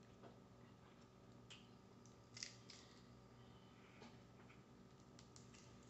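Near silence with a few faint, scattered clicks and crackles of boiled crawfish shells being handled and picked from a pile, over a low steady hum.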